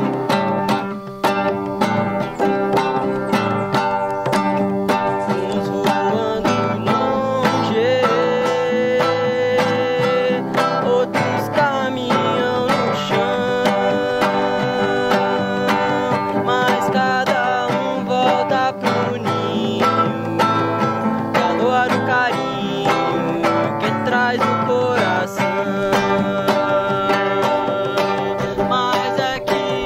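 Acoustic guitar strummed with a djembe hand drum keeping time, and a man singing along.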